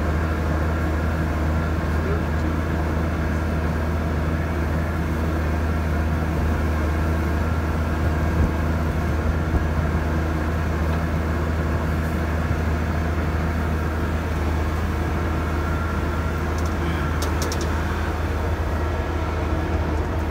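Tractor-driven Cloverdale 500T vertical TMR mixer running steadily, its auger turning and processing a load of baleage and corn stalks, over a deep, even drone from the tractor engine.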